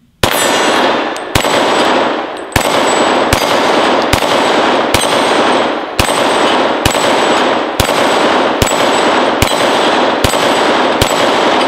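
About thirteen loud shots from a Glock pistol in .357 SIG, fired slow and steady at roughly one a second. Each shot is followed by the ring of a steel dueling-tree plate being hit and a long echo that fills the gaps between shots.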